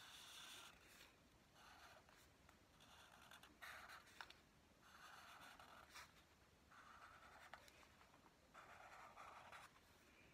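Sharpie marker drawing lines on paper: a run of faint, scratchy strokes, each under a second long, with short pauses between.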